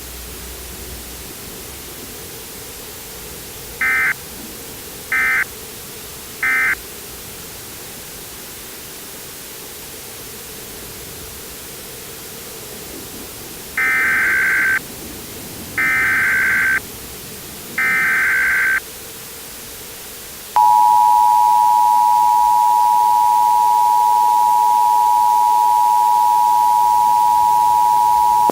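Emergency Alert System data tones: three short end-of-message bursts, then a few seconds later three longer, one-second SAME header bursts. From about twenty seconds in comes the loud, steady two-tone EAS attention signal, over a constant hiss.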